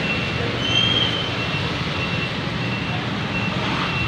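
Street traffic: small motorcycle and tricycle engines running past, with a short high electronic beep repeating about twice a second.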